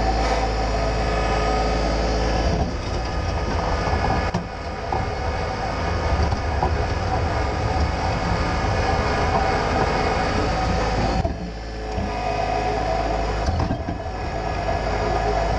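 John Deere 2025R compact tractor's three-cylinder diesel engine running steadily under load while it pulls a rock rake through loose dirt. The sound dips briefly a couple of times.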